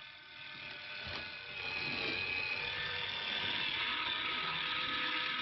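LitterMaid self-cleaning litter box's electric rake drive running steadily, pulling its plastic comb through the clay litter during a clean cycle. There is a faint click about a second in, and the running grows louder from about a second and a half in.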